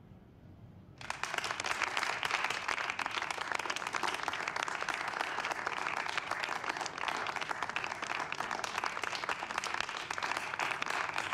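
Audience applause, starting suddenly about a second in just as the song ends, then dense, steady clapping.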